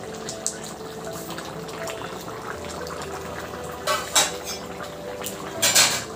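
Chicken curry boiling hard in a steel kadai, a steady bubbling. Two short, sharp metallic clatters stand out, about four seconds in and again near the end.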